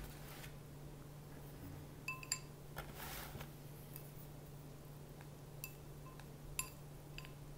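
Wooden chopsticks clinking against a bowl of instant noodles as the noodles are stirred and lifted: about five light clinks, each ringing briefly, two around two seconds in and three more near the end. A low steady hum runs underneath.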